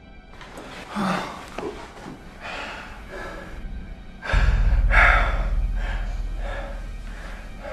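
A person breathing in heavy, ragged gasps, one breath about every half to one second. About four seconds in, a deep low rumble comes in suddenly under the breathing and slowly fades.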